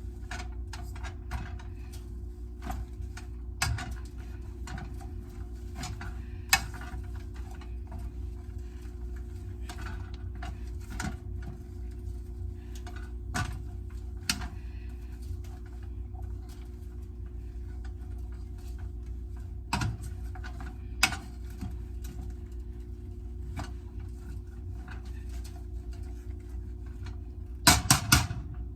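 Potato masher working boiled potatoes in a pot: scattered soft knocks and clicks of the masher against the pot, then a quick run of louder knocks near the end, over a steady low hum.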